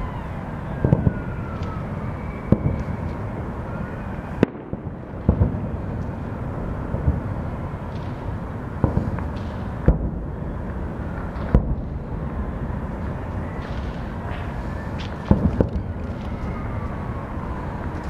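Distant aerial fireworks going off, about eight sharp bangs spaced irregularly over a steady low rumble, with the rising and falling wail of a siren in the background.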